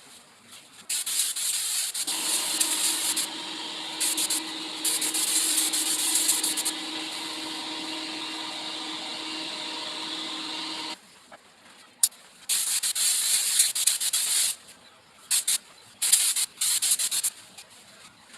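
Paint spray gun hissing in a run of sharp-edged bursts, each a fraction of a second to a couple of seconds long, as the trigger is pulled and released while spraying water-based pigmented lacquer. A steady motor hum runs underneath from about two seconds in and cuts off suddenly about eleven seconds in.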